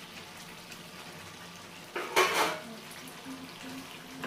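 Steel spoon stirring and scraping thick carrot halwa in a frying pan, with a loud clatter about two seconds in as a steel plate is set down on the stovetop.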